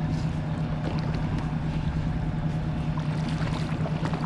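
Boat motor running steadily, a low even hum.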